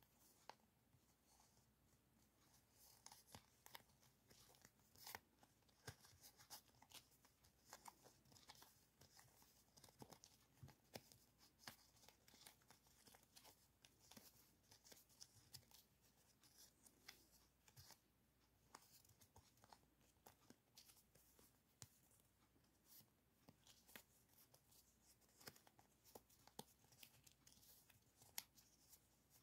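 Faint crinkling and rustling of thin clear plastic decorating stickers being handled and pulled apart, with a steady scatter of small crackles and light clicks.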